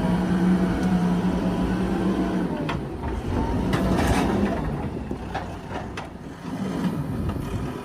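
Backhoe loader's diesel engine running hard under load, holding a steady pitch that eases about halfway through and picks up again near the end, with several sharp knocks and clanks from the machine working.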